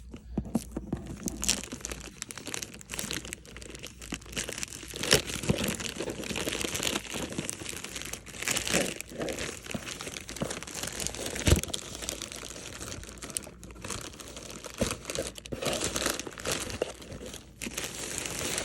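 Packaging being torn and crinkled by hand as a shipping box is opened: continuous rustling and crackling of paper, plastic and cardboard, with a sharp knock about eleven and a half seconds in.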